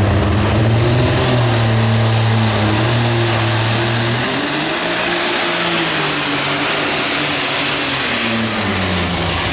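Super stock pulling tractor's engine at full throttle as it launches and pulls the sled. A high turbocharger whine rises over the first few seconds, holds, and falls away near the end.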